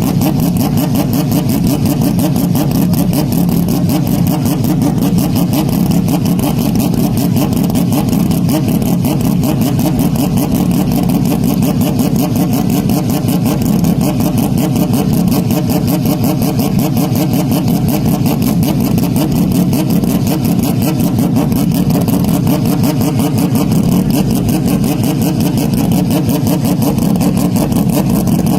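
Very loud, heavily distorted engine noise, a steady buzzing drone of rapid even pulses that does not rise, fall or pass by at any point.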